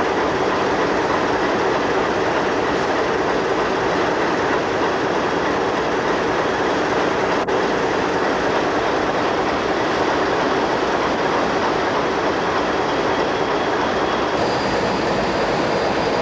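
Diesel-electric locomotive engines running steadily, a loud, even mechanical noise.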